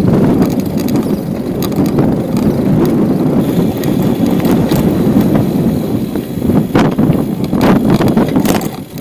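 Bicycle rolling over rough asphalt, heard from a camera riding on the bike: a loud low rumble of tyres and buffeting, with a few sharp rattling knocks from bumps in the second half.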